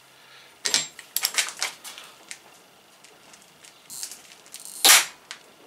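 Torque wrench set to 80 N·m being pulled on a 3D-printed vernier coupling held in a vise. A few light clicks come about a second in as the wrench is seated and loaded. Near the end there is one sharp, loud click as the wrench reaches its setting: the coupling holds, just close to slipping.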